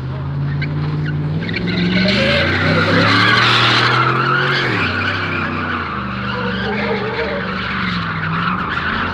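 A car drifting: its tyres skid and squeal over a steadily held engine note. The tyre noise is loudest two to four seconds in, and the engine note drops about five seconds in.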